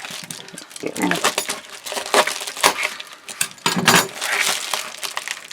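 RAM stick's plastic retail packaging being opened and handled by hand: a run of sharp plastic clicks, snaps and crinkles.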